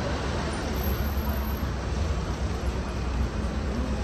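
Steady city street noise with road traffic running and a low rumble.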